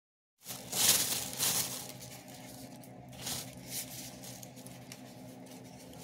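Green corn husks rustling and crinkling as ears of fresh corn are handled, loudest in a few rustles in the first two seconds, over a steady low hum.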